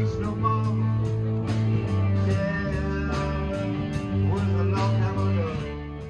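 A song playing, with a singing voice and guitar over a steady beat, dropping in level near the end.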